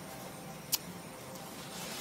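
Steady outdoor background noise with a single short click about three-quarters of a second in.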